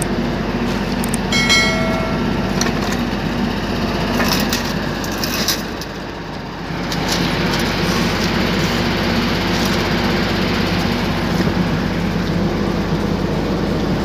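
An engine running steadily nearby, with a low hum, scattered clicks and crackles, and a brief high squeal near the start.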